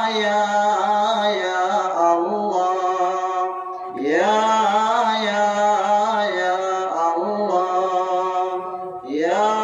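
A man singing a Bengali Islamic song (gojol) unaccompanied through a microphone, drawing each line out in long held notes. A new phrase opens with a rising glide about four seconds in, and another near the end.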